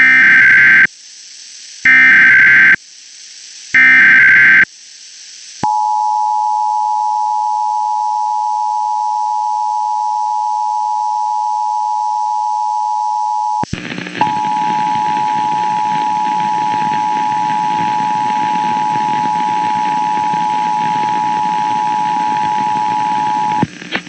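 Emergency Alert System tones. First come three short screeching SAME data bursts about two seconds apart. Then the two-tone attention signal (853 and 960 Hz) holds steady for about eighteen seconds, with a brief dropout about halfway through and a hiss beneath it after the dropout. Together they mark the start of an EAS child abduction (Amber) alert.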